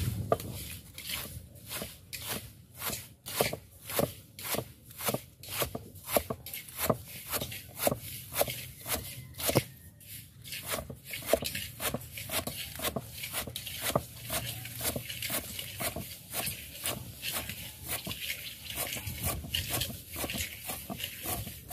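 Rhythmic knocks of a kitchen utensil while cooking, about two to three a second, coming faster and less evenly after about eleven seconds.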